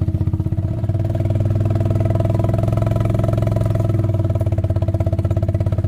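A small engine running at a steady speed, with a fast even pulse, a little louder from about a second in.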